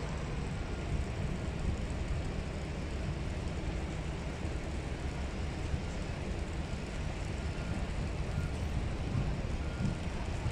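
KTM diesel locomotive running as it pulls slowly out of the station toward the listener: a steady low rumble without change.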